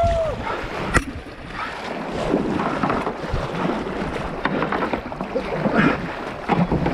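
Kayak paddle strokes and river current splashing and rushing around a whitewater kayak's hull, with wind rumbling on the microphone. A sharp knock about a second in.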